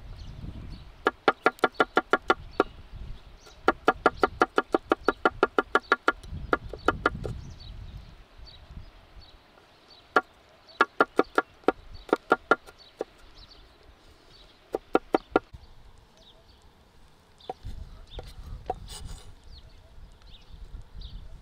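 Kitchen knife chopping garlic cloves on a thick wooden board, in fast runs of about six or seven knocks a second, each knock with a short ring. The runs stop and start, then thin to a few scattered taps near the end.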